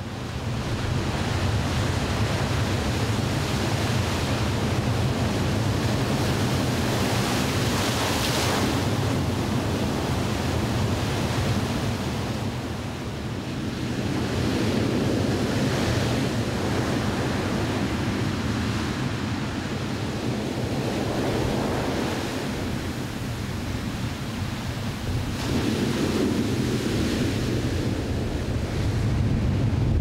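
Heavy surf breaking on dark volcanic rocks and a black sand beach: a continuous rushing wash that swells in several surges as the bigger waves crash.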